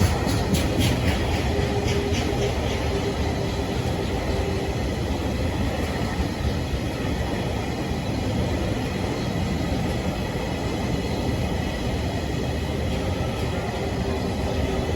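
Freight train rolling past on steel rails: a steady rumble of wagons going by, with a quick run of wheel clacks over rail joints in the first second.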